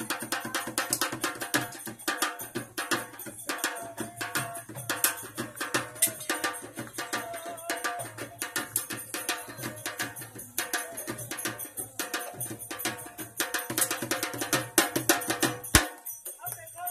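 Fast, rhythmic hand-drum music of quick, dense strokes, with a faint wavering melody line in the middle. The drumming stops abruptly with a sharp click about a second before the end.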